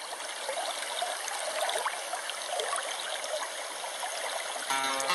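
River water rushing through rapids: a steady hiss with small splashes and gurgles. Near the end, plucked-string music comes in.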